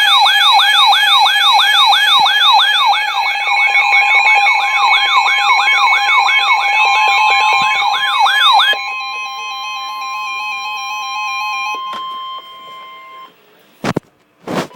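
Electronic siren yelping in fast rising sweeps, about two or three a second, over steady tones. The sweeping stops about nine seconds in, leaving steady tones that drop in level and cut off a few seconds later. Two short clicks come near the end.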